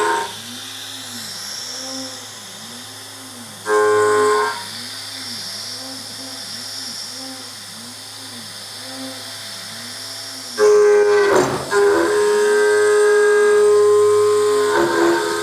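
Home-built CNC machine running a job: its axis motors whine, rising and falling in a steady repeating pattern. Brief pitched tones sound twice early on. About ten seconds in, a louder steady tone sets in, with a rough, shaky patch a second later.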